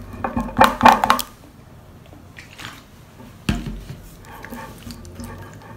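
Silicone spatula stirring clear glue and blue dye in a glass bowl, scraping and clinking against the glass, loudest about a second in. A sudden knock about three and a half seconds in.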